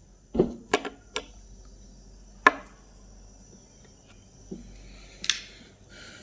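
Small plastic cleaning-kit pieces being handled: a few scattered clicks and taps, the sharpest about two and a half seconds in, with a brief rustle near the end. A faint steady high-pitched tone runs underneath.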